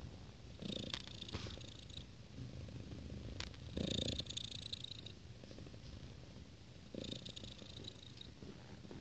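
Thai cat purring steadily close to the microphone, swelling louder about a second in, again near four seconds and near seven seconds.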